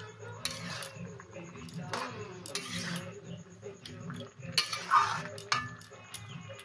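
A metal spatula scraping and clinking against a metal kadai as pumpkin leaves are stirred in it. There are several strokes, the loudest about five seconds in, over a steady low hum.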